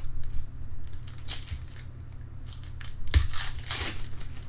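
Crinkling and tearing of a foil trading-card pack wrapper as a pack is opened, in short rustling bursts, the loudest about three seconds in.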